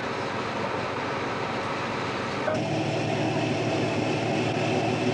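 Boat diesel engines droning steadily. About two and a half seconds in the sound cuts abruptly to a deeper, steadier engine hum.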